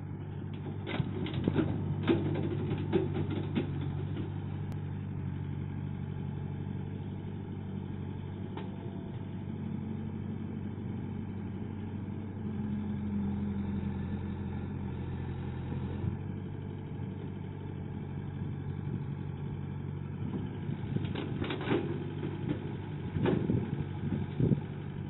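Diesel engine of a compact tracked excavator running steadily while it digs a trench. Bursts of knocking and clatter from the bucket come about a second in and again near the end, as the bucket scoops and dumps soil.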